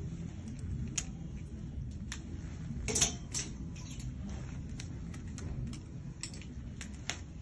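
Clothes hangers clicking and scraping on a metal clothing rail as garments are taken down and handled: a scattered series of sharp clicks, the loudest about three seconds in, over a low steady background rumble.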